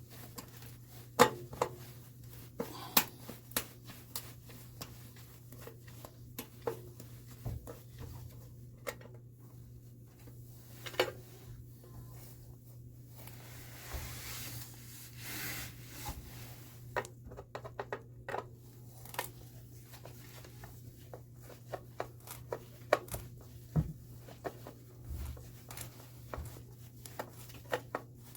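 Scattered clicks, taps and light knocks of hands at work, irregular and of varying strength, over a steady low hum.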